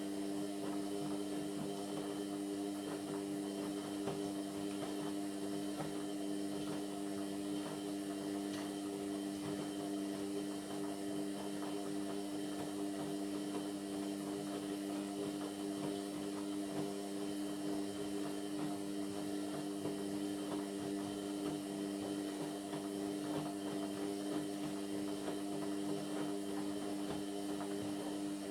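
Indesit MyTime washing machine's drain pump running, a steady, unchanging hum that starts and stops abruptly.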